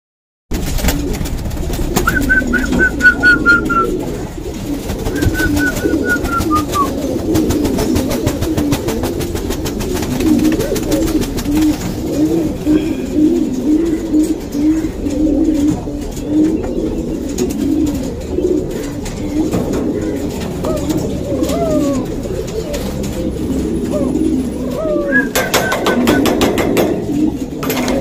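Domestic pigeons cooing, a steady run of low, repeated coos. A few thin, high, falling calls come in about two and five seconds in and again near the end, and a burst of rustling noise sounds near the end.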